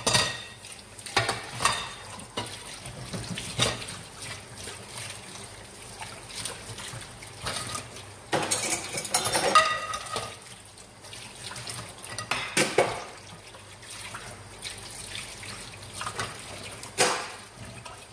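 Pots and dishes being hand-washed in a stainless steel sink: repeated clatters, knocks and scrapes of cookware against the sink over steadily running water.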